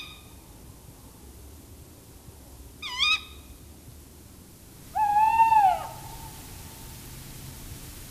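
Tawny owl calls: the end of a short, sharp call at the very start and another short call about three seconds in, then a longer call about five seconds in that rises and falls in pitch.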